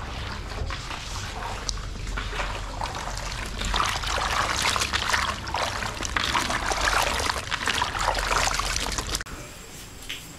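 Water trickling and splashing unevenly, busiest in the middle, then dropping away abruptly about nine seconds in.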